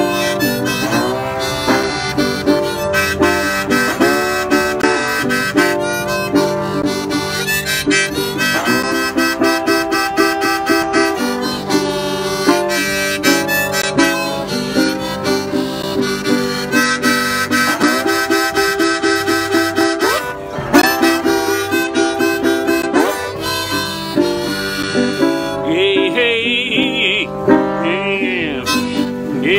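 Harmonica in a neck rack played together with a metal-bodied resonator guitar picked with a slide: an instrumental break with rhythmic plucked notes and sliding, gliding pitches. Near the end the harmonica holds a wavering high note.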